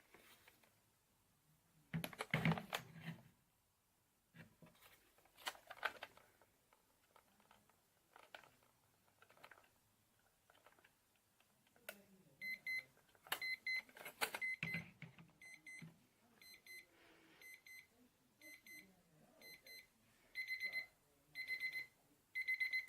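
Electronic alarm clock beeper sounding a repeating high beep that starts about halfway through and comes in faster, louder groups near the end. Before that there are scattered clicks and knocks from handling the clock, the loudest about two seconds in.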